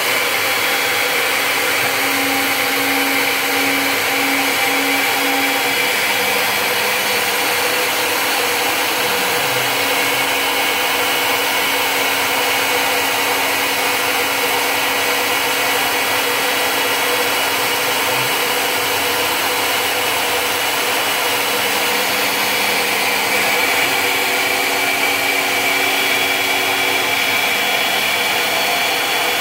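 CNC Tensilkut III milling machine running, its spindle and end mill cutting a wood composite blank into a tensile specimen: a steady whirring hiss, with fainter low tones that come and go and shift in pitch.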